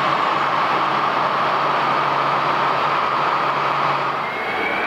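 Airbus A320-211 airliner's CFM56 jet engines running as the aircraft taxis past: a steady loud hum with a low tone under it. About four seconds in the sound shifts and a high whine rises slowly in pitch as the engines spool up.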